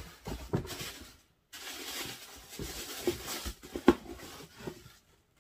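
Paper rustling and crinkling as a cardboard shoebox is opened and the wrapping paper inside is handled, with a few sharp taps of cardboard. The handling dies away near the end.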